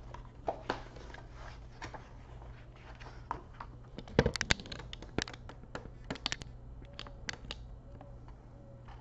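Handling noise from hands on a webcam and a picture book: scattered clicks, taps and rustles, with a cluster of louder knocks a little past the middle, over a steady low hum.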